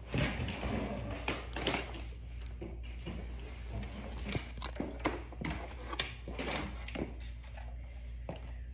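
Large cardboard furniture box being handled and broken down: irregular scraping and rustling of cardboard with scattered sharp clicks and knocks.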